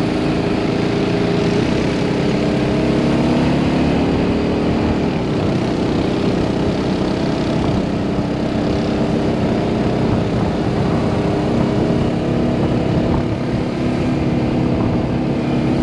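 An ATV's engine runs steadily at cruising speed on a paved road, its pitch rising and falling a little, with wind and road noise over it.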